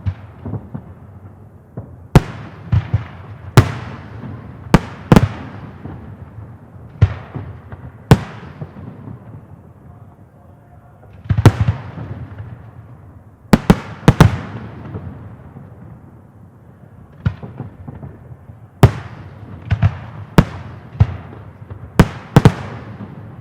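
Aerial fireworks shells bursting in an irregular series of loud bangs, some in quick pairs, each followed by a long echoing rumble.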